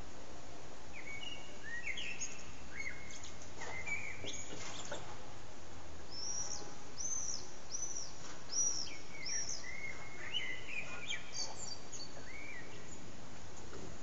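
Common blackbird singing: fluty, warbled phrases several times over, with a run of five high, repeated arched notes in the middle. A steady hiss of background noise runs beneath.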